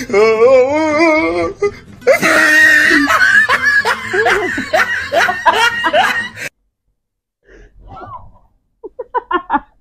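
A man and a woman laughing loudly, the laughter breaking off abruptly about six and a half seconds in, followed by a few faint giggles near the end.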